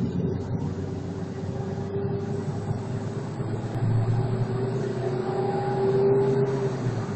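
Ford Focus 2 cabin noise while driving: engine and road noise with a steady hum that rises slightly in pitch around the middle.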